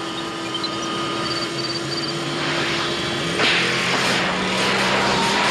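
Film sound effect of the DeLorean time machine speeding closer with its engine running. About three and a half seconds in, a loud electric crackling and hissing suddenly swells over it as the car charges with sparks.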